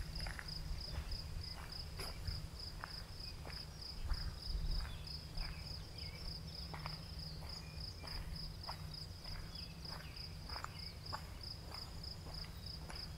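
Crickets chirping in a steady, rapid, evenly pulsed high trill. Faint scattered clicks and rustles sound underneath, over a low rumble.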